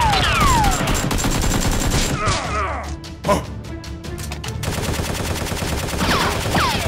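Machine-gun fire sound effects, fired in rapid bursts. Falling whistle-like tones come near the start and again near the end.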